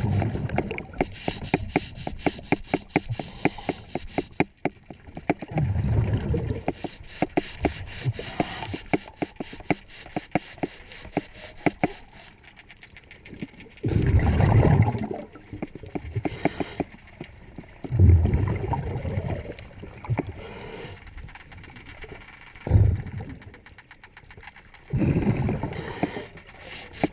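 Scuba diver breathing through a regulator underwater: exhaled bubbles rumble in bursts of a second or two, roughly every four to eight seconds. Between breaths come runs of fine, rapid clicking.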